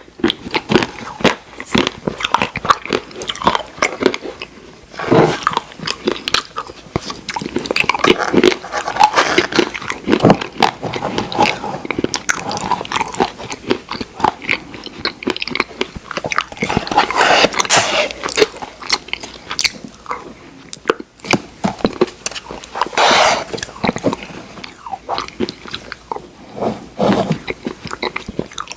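A person eating Oreo ice cream close to the microphone: biting and chewing, with crunches of cookie pieces. The sound comes as a dense, uneven run of quick clicks and short smacks.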